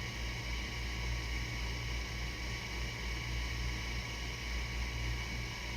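Desktop 3D printer running a print: steady fan noise and a low hum with thin whining tones from the stepper motors as the print head moves and lays down filament.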